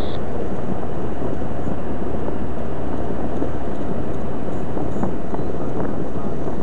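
A Cessna 152's four-cylinder Lycoming O-235 engine and propeller running at full power on the takeoff roll, a loud, steady drone.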